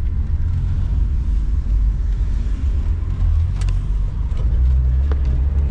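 Volkswagen Kombi van running on the road, heard from inside the cab: a steady low engine and road rumble, with a brief click about halfway.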